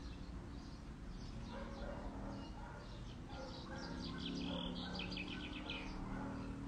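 Songbirds chirping and calling, with a quick run of rapid repeated notes about four seconds in, over a low steady hum.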